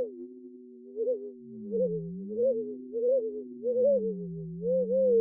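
Synthesized sine-like tones from a math sonification: a low tone swooping slowly down and back up, under a higher tone that wobbles in quick, rising humps about twice a second and jumps up near the end.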